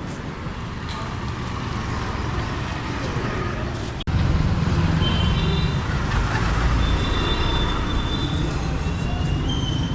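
Street traffic noise with passing motor vehicles. About four seconds in it cuts abruptly to a louder stretch of low engine rumble, with a few thin high tones.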